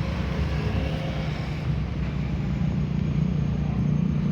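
A bus engine running with a steady low rumble that grows a little louder near the end; no horn sounds.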